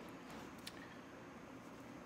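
Near silence: quiet room tone with one faint click about two-thirds of a second in.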